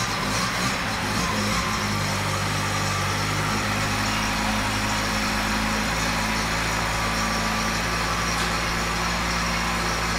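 Freshly rebuilt Mazda 818's engine idling steadily, a little uneven in the first second and then even.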